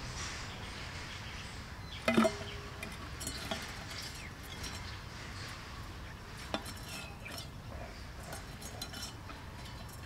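Empty metal formula tin dropping into a hole with one sharp metallic clang and a brief ring about two seconds in, followed by scattered clicks and taps from the parrot moving inside the tin.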